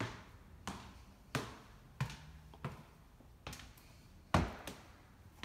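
Footsteps climbing a staircase with hard wood-look treads: about eight separate knocking steps, roughly one every two-thirds of a second, the heaviest one about a second before the end.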